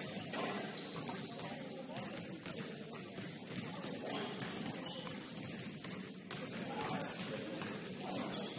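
Basketball game play: short, high-pitched sneaker squeaks on the court, the loudest about seven seconds in, among scattered knocks and low voices.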